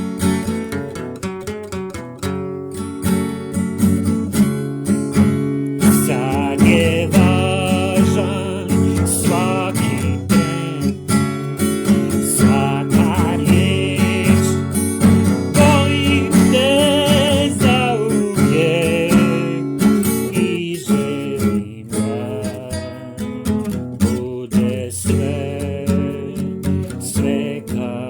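Music: strummed acoustic guitar. A wavering melody line plays over it from about six seconds in until about twenty seconds.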